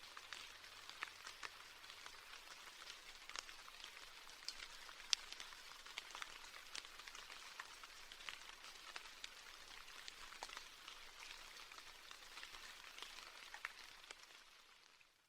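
Steady rain falling, with many separate drops clicking sharply through the hiss. It fades out over the last second or so.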